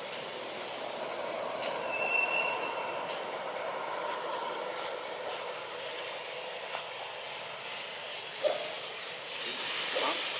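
Steady hissing outdoor ambience among the trees. A brief high tone sounds about two seconds in, and a couple of short squeaks come near the end.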